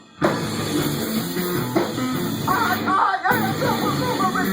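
Rock music led by guitar, with a brief break right at the start and another about three seconds in.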